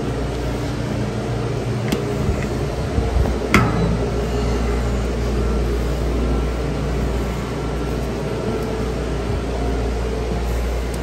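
Steady low machinery drone aboard a container ship at sea, with a couple of short metallic knocks on the steel ladder rungs, the sharpest about three and a half seconds in.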